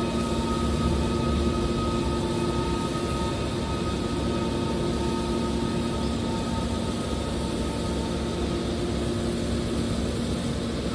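Scrap metal baler's hydraulic power unit running with a steady mechanical hum and drone.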